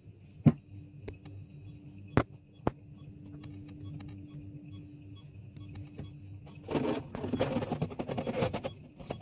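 Thick freezer frost being scraped by hand, a dense crunching scrape that starts about seven seconds in and lasts around two seconds. Before it come a few sharp clicks over a faint steady hum.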